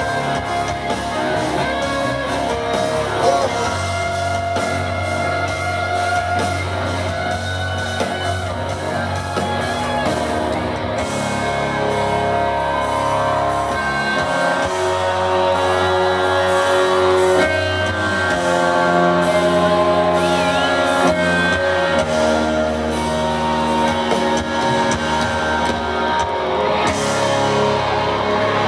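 Country-rock band playing live through a PA: electric guitars, bass and drum kit, with singing.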